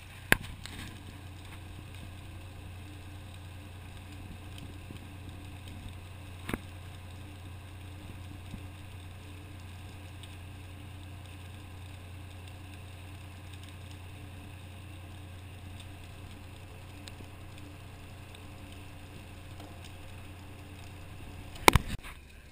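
Fire engine's diesel engine running steadily at pump speed, a low drone while it pumps water into the hose lines. A couple of sharp knocks stand out, and a loud knock near the end is followed by the drone cutting off.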